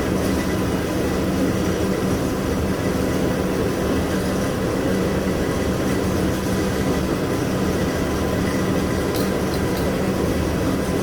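A motor running steadily at constant speed, a steady hum over a broad rushing noise.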